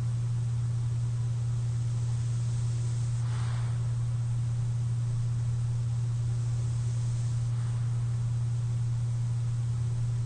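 Steady low hum, with faint airy breaths of a sleeper wearing a CPAP mask. The clearest breath comes about three and a half seconds in and a weaker one near eight seconds; there is no loud snore.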